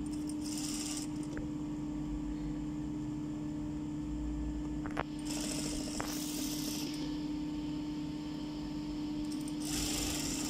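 Industrial sewing machine stitching an invisible zipper onto fabric in a few short runs, about half a second in, from about 5 to 7 seconds, and near the end, over a steady hum, with a couple of sharp clicks in between.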